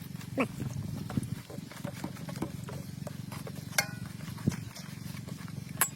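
A pot of chicken gizzards cooking in spiced water over the fire, with a steady low rumble and scattered small clicks and taps. A short high call falls in pitch about half a second in, and another short call comes near four seconds.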